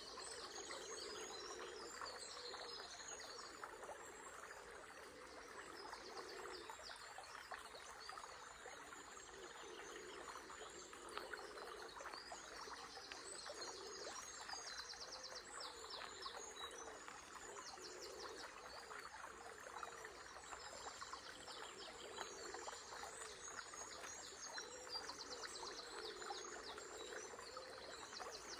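A small river flowing steadily under a faint dawn chorus of songbirds, with repeated high trills and chirps throughout.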